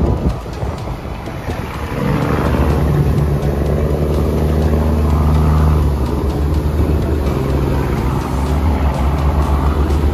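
Pilot boat's engines running steadily as it comes alongside a moving ship, with water rushing past the hulls. The engine note grows louder about two seconds in.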